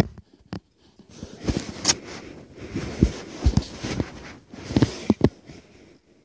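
Rustling and scraping handling noise right against a phone's microphone, irregular, with several sharp knocks.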